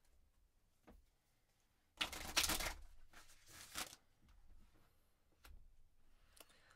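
Oracle cards shuffled by hand, a dense papery rustle starting about two seconds in and lasting about two seconds, followed by light taps as a card is drawn and laid on a cloth-covered table.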